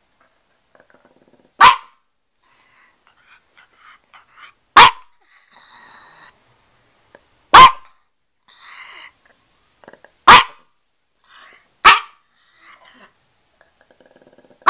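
Pekingese dog barking single short, loud barks, spaced about two to three seconds apart.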